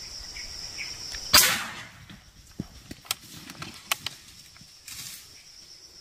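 A single PCP air rifle shot about a second and a half in: a sharp crack that dies away over about half a second, over a steady high insect buzz. A few faint clicks and rustles follow.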